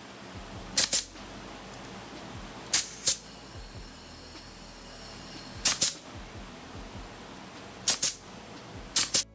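Pneumatic C-ring (hog ring) gun firing five times, spaced a couple of seconds apart, each shot a sharp double snap with a hiss of air as it clamps rings through chicken wire onto a welded-wire frame.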